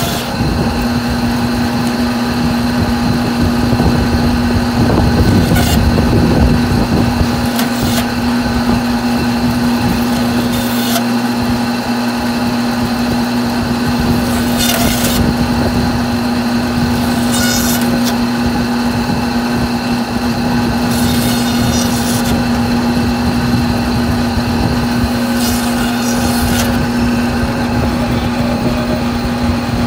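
Electric meat bandsaw running with a steady hum while its blade cuts through a goat carcass. There are several short bursts of noise a few seconds apart as the blade goes through bone.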